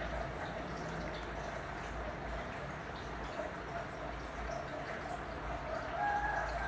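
Fishing reel's line-out clicker ratcheting in a rapid, continuous buzz of clicks as the spool spins, a loud clicker in working order.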